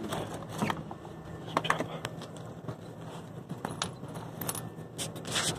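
Clicks and rustling as a wallet is pulled out and handled, with a light jingle, over a steady low hum.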